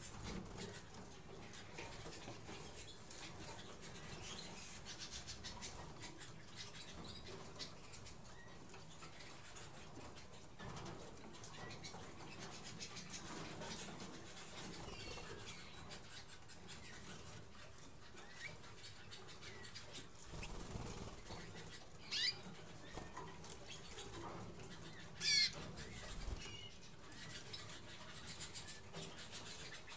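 Harzer Roller canaries giving short, scattered chirps, with two louder sweeping chirps a few seconds apart near the end, and now and then a flutter of wings, over a faint steady hiss.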